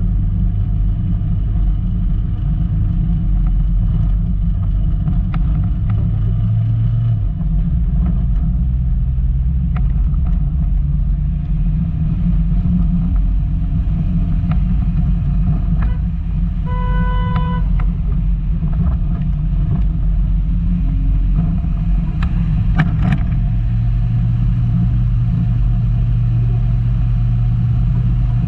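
Volkswagen Golf Mk2 engine running steadily under load off-road, its low drone shifting in pitch now and then, with scattered knocks from the car over rough ground. A short horn toot sounds once, a little past the middle.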